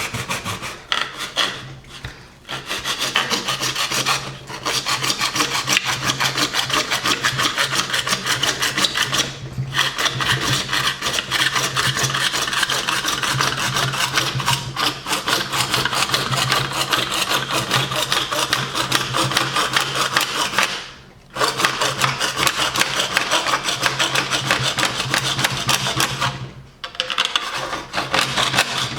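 Hand saw cutting through a frame piece with rapid back-and-forth strokes, stopping briefly a few times.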